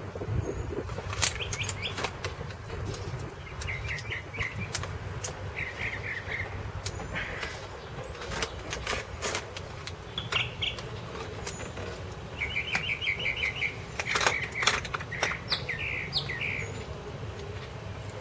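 Sharp clicks and knocks of plastic fuel-injector electrical connectors being unclipped with pliers, scattered irregularly and loudest near the start and about three-quarters through. Birds chirp in short rapid trills in the background.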